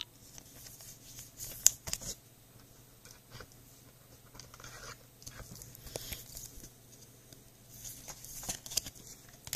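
Baseball cards being handled and slid into a clear plastic penny sleeve and a rigid plastic toploader: light scraping and rustling of plastic with scattered soft clicks, the sharpest one about a second and a half in.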